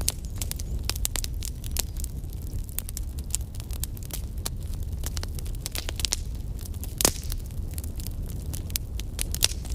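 Crackling fire sound effect: a steady low rumble with frequent small pops and crackles, and one louder pop about seven seconds in.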